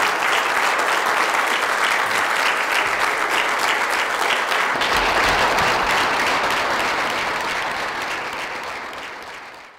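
Audience applauding, steady clapping from many hands that fades away near the end.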